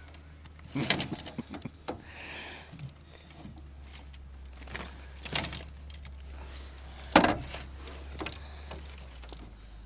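Scattered knocks and thumps, the sharpest about seven seconds in, over a low steady hum.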